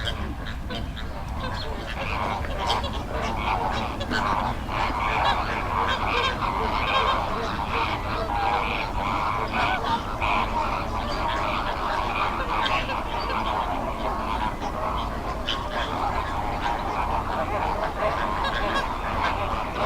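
A flock of American flamingos calling together: a continuous din of many overlapping goose-like honks.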